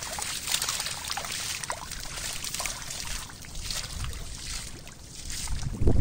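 A mass of catfish writhing in shallow mud, making a steady wet crackling and squelching full of small splashes and clicks. A loud low rumble starts just before the end.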